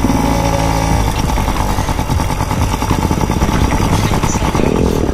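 Small children's dirt bike engine running at a low, steady speed as the bike rolls slowly along a dirt track.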